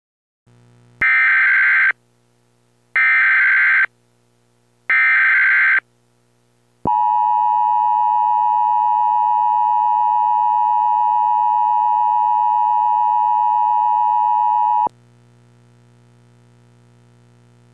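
Emergency Alert System broadcast opening: three one-second bursts of SAME header data tones, about two seconds apart. They are followed by the long steady attention-signal tone for about eight seconds, which cuts off suddenly and leaves a faint low hum.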